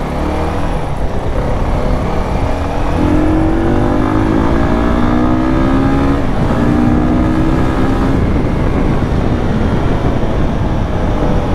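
Fekon 3GP 300cc sportbike engine heard from the saddle while riding, pulling up through the revs with a rising note, a brief break for an upshift about six seconds in, then climbing again in the next gear. Wind rush on the microphone runs under it.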